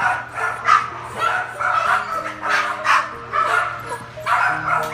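Dogs barking and yipping in quick repeated bursts, about two a second, over background music.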